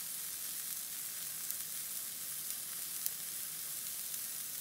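Sliced carrots and broccoli sizzling in vegetable oil in a non-stick frying pan. A steady high hiss runs throughout, with a few small pops, one about three seconds in. The vegetables are nearly tender.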